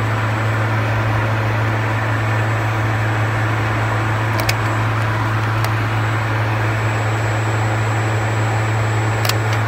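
BMW E90 electric radiator cooling fan running steadily with a low drone, with the car switched off and the engine cold (about 32 °C). The mechanic traces this run-on to the engine computer reading 95 °C coolant temperature on the cold engine. A few faint clicks sound about halfway through and near the end.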